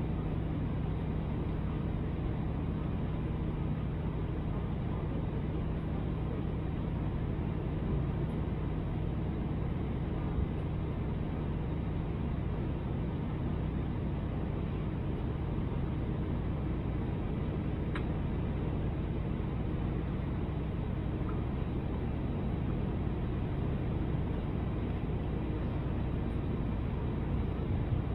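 Airbus A319 cabin noise in flight: the steady drone of the engines and rushing air, with a constant low hum underneath.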